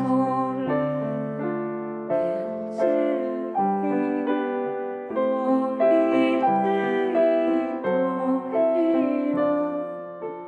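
Background piano music: a melody of struck notes over held chords, each note ringing and fading.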